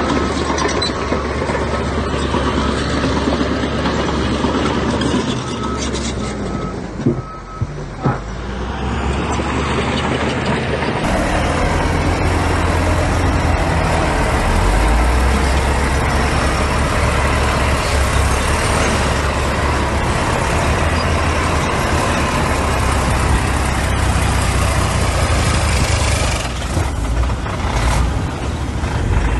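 Heavy diesel trucks and earthmoving machinery running steadily. A run of short, even beeps sounds about six seconds in, with two sharp knocks soon after.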